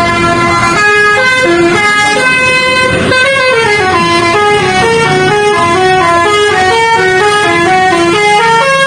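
Indonesian bus 'basuri' telolet air horn playing a melody: a continuous run of stepped notes, each lasting a few tenths of a second, going up and down without a break.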